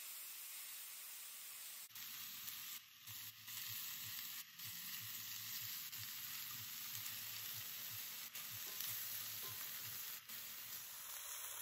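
Marinated oxtail pieces sizzling as they sear in hot olive oil in a Dutch oven, being turned with tongs. A steady frying hiss, broken by a few brief gaps.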